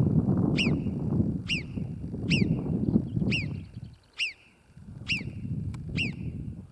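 Alpine marmot giving its alarm call: seven sharp, high whistles, each falling in pitch, about one a second. The call warns of a human close by.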